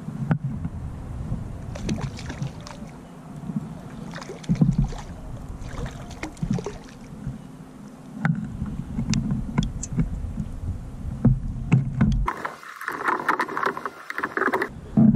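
Wind buffeting the microphone on a kayak, with scattered clicks and knocks from handling a fishing rod and reel while fighting a hooked fish. For a couple of seconds near the end there is a louder burst of splashing as the fish is brought up beside the kayak.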